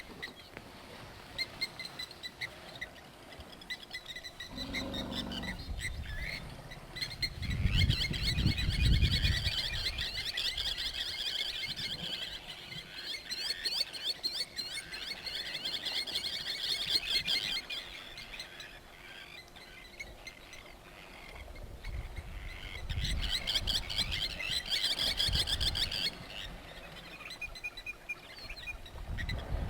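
Wild birds chirping and calling outdoors: a few repeated short calls at first, then two long spells of dense chattering, over a low rumble at times.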